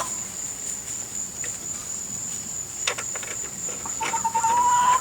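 Steady, thin, high-pitched insect drone, with a single sharp click about three seconds in and a brief, slightly rising tone near the end.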